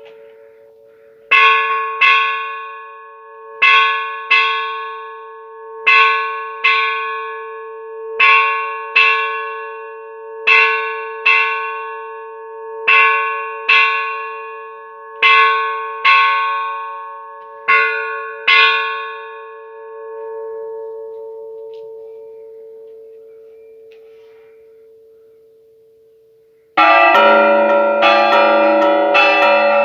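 Church bell struck in pairs of two strokes, eight pairs about two seconds apart, its hum lingering and fading after the last pair. Near the end, bells break into a fast, dense repique, with lower bells joining in.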